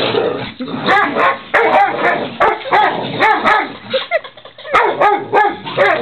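Dogs play-fighting, giving rapid barks and yips several times a second, mixed with sharp clicks. There is a short lull about two-thirds of the way through.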